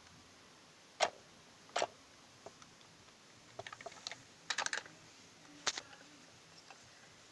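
Hard plastic toy parts clicking and knocking as a Playmobil toy sweeper is handled and tipped against a Bruder toy wheelie bin: a few single sharp clicks, then quick rattling runs of small clicks in the middle.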